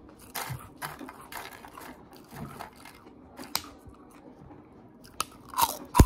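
Close-up chewing of crispy puffed pork rinds: irregular crisp crunches, with a sharper crunch about three and a half seconds in and a few more near the end.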